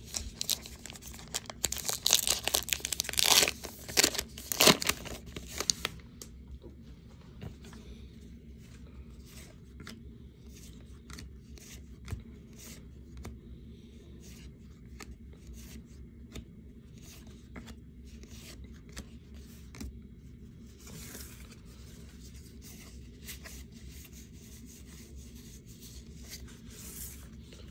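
Plastic wrapper of a baseball card pack tearing open and crinkling loudly for the first several seconds. After that, fainter ticks and slides of trading cards being flipped through one by one.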